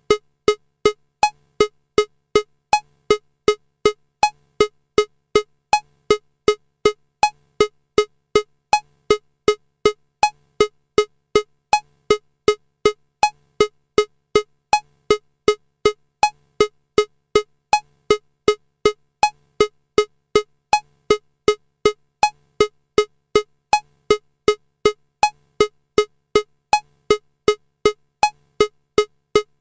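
Metronome clicking steadily at 160 beats per minute in 4/4, a little under three clicks a second, with every fourth click higher-pitched to mark the downbeat.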